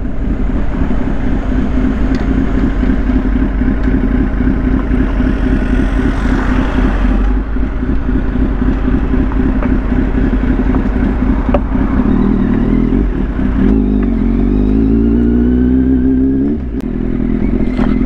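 Kawasaki Z800's inline-four engine running as the motorcycle is ridden at low speed. About twelve seconds in, its pitch climbs steadily as it accelerates, then drops off suddenly near the end as the throttle closes.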